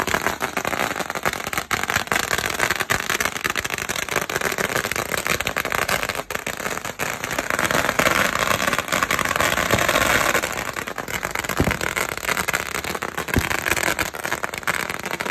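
Strings of firecrackers going off in a rapid, continuous crackle of small bangs, loudest around the middle, with a few sharper single bangs near the end.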